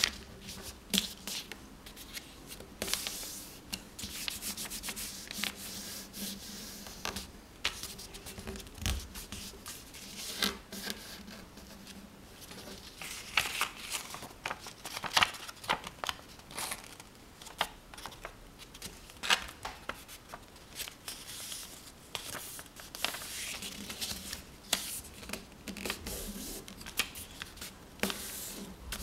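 A sheet of paper being folded by hand into a paper airplane: fingers rubbing and creasing the folds, making repeated papery swishes with sharp crackles and taps.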